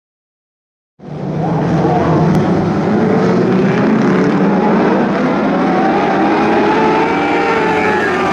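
A pack of winged Lightning Sprint cars racing together, several engines running at once with their notes wavering up and down. The sound cuts in suddenly about a second in.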